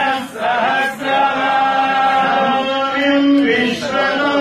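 Male voices chanting a Hindu hymn together, holding long, steady notes.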